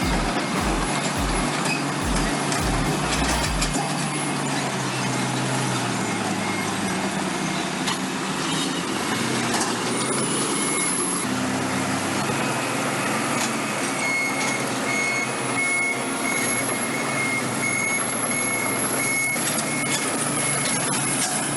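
Large Caterpillar bulldozers and scrapers running hard under load. A reversing alarm beeps repeatedly through the second half.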